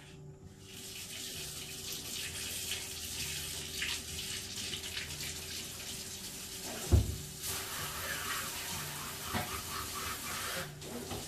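Water running from a kitchen faucet, starting about a second in and shutting off near the end, with a single knock partway through.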